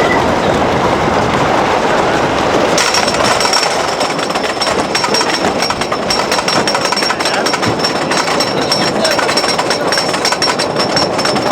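Wooden roller coaster train clattering on its track in a fast, continuous rattle. About three seconds in, a steady high-pitched whine joins it.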